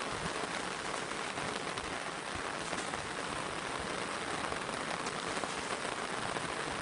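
Steady monsoon rain falling, a dense even hiss of drops with many tiny ticks.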